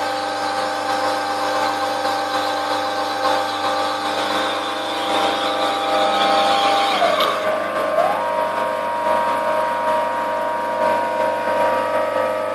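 DIY CNC-converted lathe running a threading pass on PVC pipe: a steady whine from its stepper motors over a hiss of cutting. About seven seconds in, the hiss stops and one motor tone falls away. A second later a new motor tone rises and holds steady as the next move begins.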